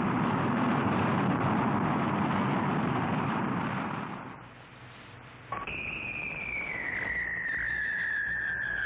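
Cartoon sound effects: a rocket's rushing noise that fades out about four seconds in, then, after a short pause, a long whistle that slides slowly down in pitch, the classic cartoon sound of something falling as the capsule drifts down under its parachute.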